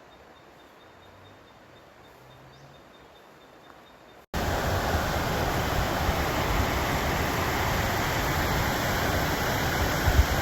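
Faint hiss for about four seconds, then a sudden cut to a loud, steady rushing noise, without pitch or rhythm, that lasts to the end.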